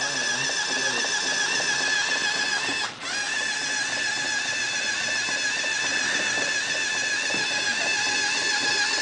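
Motor drive of a robotic chessboard whining steadily as it moves a piece across the board, with one brief break about three seconds in.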